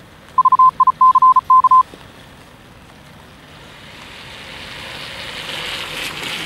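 A quick run of short and longer electronic beeps, all at one high pitch, for about a second and a half near the start. Then a steady hiss of rain and tyres on wet pavement that grows louder towards the end as a car comes closer.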